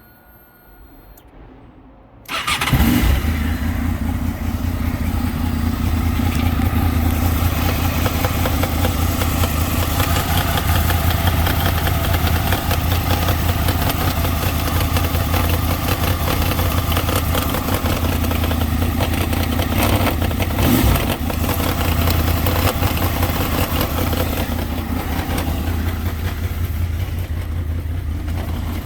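2003 Honda VFR800's V4 engine firing up about two seconds in, then idling steadily with a rattling, knocking noise, a fault whose cause the owner does not know.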